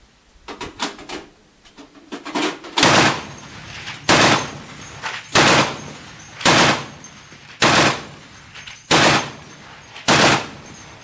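A tank-mounted M2 Browning .50 cal heavy machine gun firing seven times, evenly spaced about once every second and a quarter, each report loud and sharp. A few fainter knocks come in the first two seconds before the first shot.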